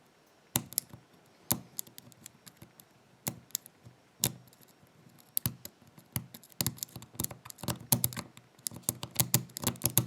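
A lock pick working the wafers of a cheap SAFEMAN cable lock's wafer cylinder under light tension from a tension wrench: small sharp metal clicks and scrapes, a few at first, then coming fast and close together over the last few seconds.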